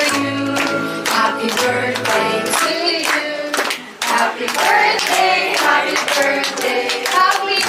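A song with singing over music, and hands clapping along. The sound drops away briefly near the middle, then resumes.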